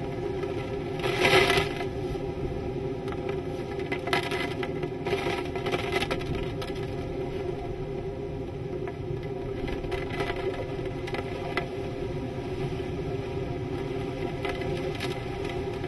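Hurricane-force wind and driving rain in a steady rush, with louder gusts about a second in and again around four to six seconds in.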